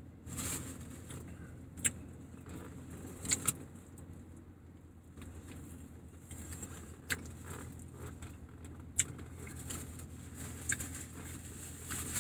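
A person chewing a mouthful of steak wrap, with a few short sharp clicks and smacks scattered through, over a low steady hum of a car interior.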